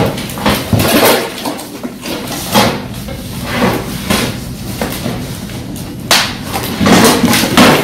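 A cardboard carton and its packing being handled and pulled apart during an unboxing: irregular scraping, rustling and knocks, with the loudest bumps about six seconds in and again near the end.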